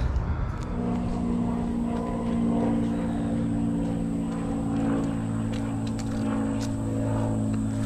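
A car being driven at a steady speed: an even engine and road drone, with scattered light clicks and rattles.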